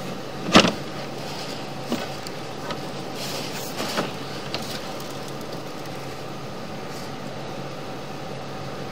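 Steady mechanical hum with a few sharp knocks and clicks, the loudest about half a second in and lighter ones over the next few seconds.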